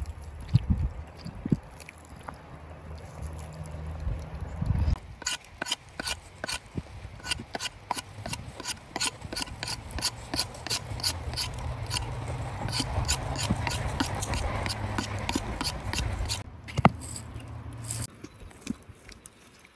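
Knife whittling a fresh green stick, a steady run of short scraping strokes, a few a second, starting about five seconds in and stopping a few seconds before the end. A single sharp knock follows.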